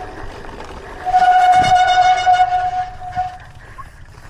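A vehicle horn sounding one long, steady blast of about two seconds, starting about a second in.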